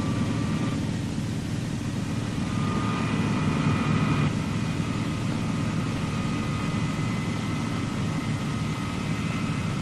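Boeing B-47 Stratojet's number four General Electric J47 turbojet being started: a steady low rumble with a thin whine that comes in about two and a half seconds in and slowly rises in pitch as the engine spools up.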